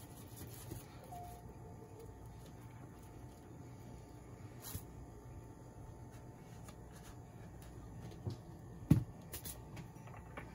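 Quiet kitchen with a low hum, a few light clicks and taps, and one sharp knock about nine seconds in, from things being handled on the counter.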